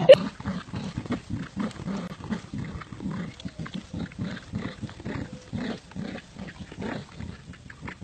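An animal making a rapid train of short, low sounds, about four a second.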